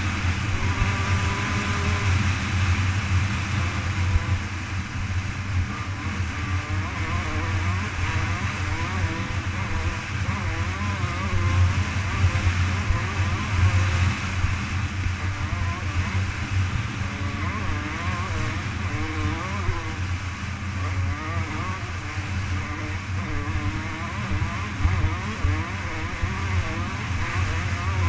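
Off-road dirt bike engine running hard at speed on a straight, its pitch wavering slightly as the throttle and terrain change, mixed with the rush of wind over the onboard camera.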